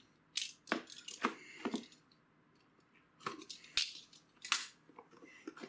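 A utility knife cutting through the seal on a cardboard motherboard box: short, sharp slicing scrapes and knocks of the box being handled. They come in two bunches with a quiet pause of about a second between them.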